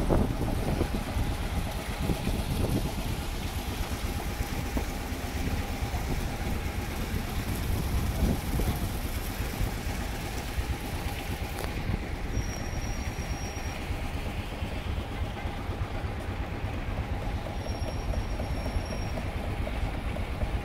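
Wind rumbling on the microphone over a steady faint hum, with two brief high-pitched whistles, one about midway and one near the end.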